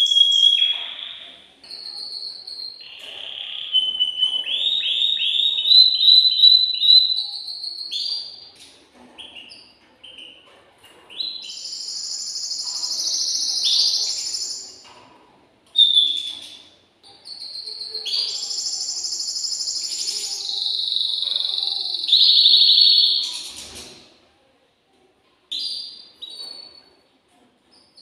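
Male domestic canary singing an excited breeding-season song: high-pitched phrases of fast trills and rapidly repeated notes, each phrase a few seconds long, with a short pause near the end.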